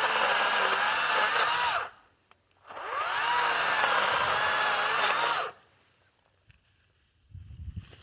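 Kobalt 40V Max battery-powered chainsaw revving up with a rising electric whine and running at speed, twice in a row, with small dips in pitch as it bites into wood; it stops about two-thirds of the way in.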